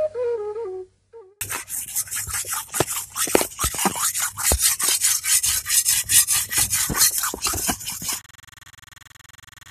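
A blade rubbed back and forth on a flat sharpening stone in quick strokes, several a second, stopping suddenly about eight seconds in. A faint steady hum follows.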